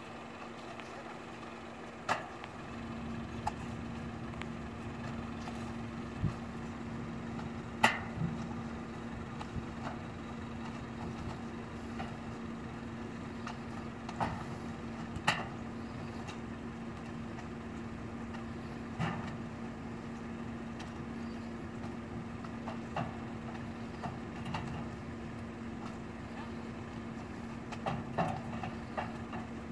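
A vehicle engine idling with a steady low hum, joined now and then by single sharp knocks, a few louder than the rest.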